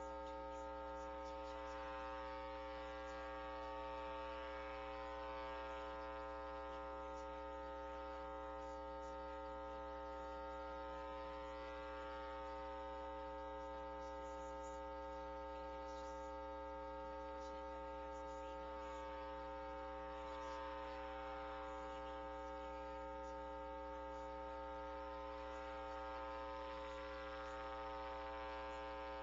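Steady electrical mains hum with many overtones, unchanging throughout.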